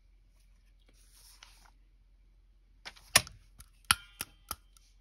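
A hand-held metal hole punch being picked up and handled: a faint paper rustle, then a quick run of sharp metallic clicks and clacks, one of them ringing briefly.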